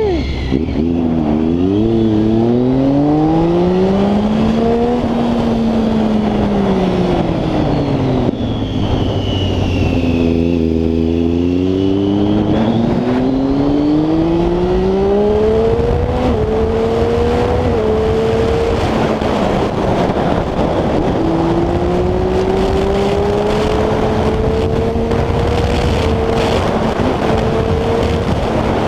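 Triumph Street Triple 675's inline three-cylinder engine through a full Arrow exhaust while the bike is ridden. It pulls up through the gears with a quick drop in pitch at each upshift, then winds down as the bike slows. It accelerates through the gears again and settles to a steady cruise.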